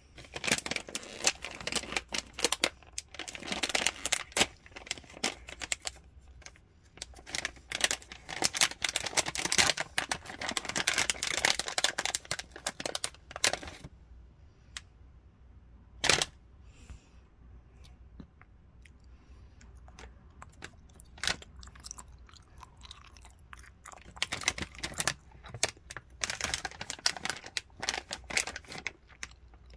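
Crinkling and crackling of a plastic rope-jelly pouch being handled and torn open, in dense bursts through the first half and again near the end, with a quieter stretch and one sharp click in between.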